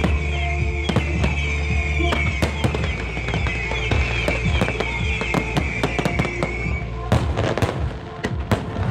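Fireworks display: shells bursting in rapid, overlapping bangs and crackles, with music playing along. The music drops out about seven seconds in, leaving the bursts more exposed.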